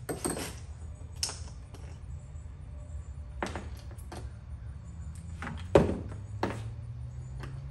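Hand tools being handled and taken from a tool set: a few scattered clicks and metal knocks, the sharpest about six seconds in, over a steady low hum.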